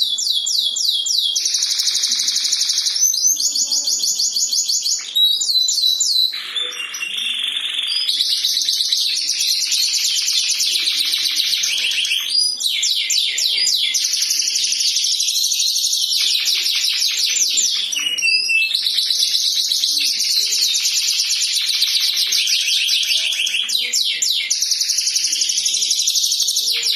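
Domestic canary singing loudly, a long, nearly unbroken song of rapid trills and rolling phrases that run one into the next.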